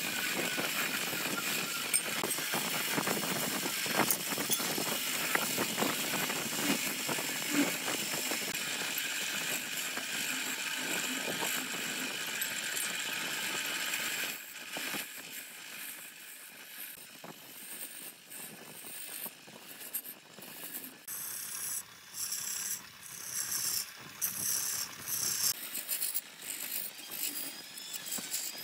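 Wood lathe spinning a vase blank while a hand-held flat scraping chisel cuts into the end grain: a continuous scraping with a steady whine. About halfway through it drops to quieter, irregular bursts of cutting and chatter as the tool works into the hollow of the vase.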